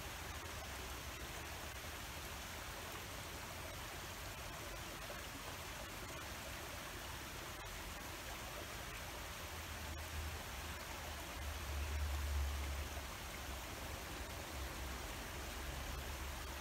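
Steady rushing outdoor noise, with a low rumble that swells about ten seconds in and eases off near the end.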